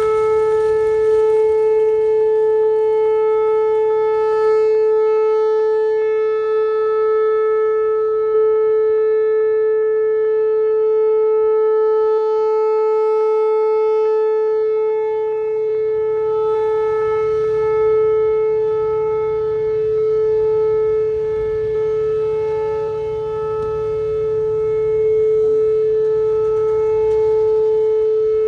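Outdoor tornado warning siren sounding its weekly test, holding one steady tone at full pitch.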